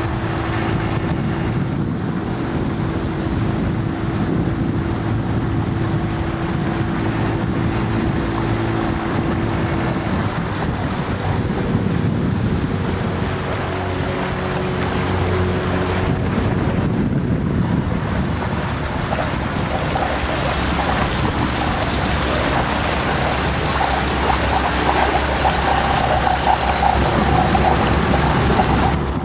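Outboard motor running steadily as a small boat travels across the lake, with water rushing past the hull and wind noise on the microphone.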